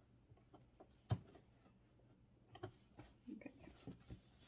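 Near silence with a few faint clicks and taps of fabric and sewing machine parts being handled, one sharper click about a second in. The sewing machine is not stitching.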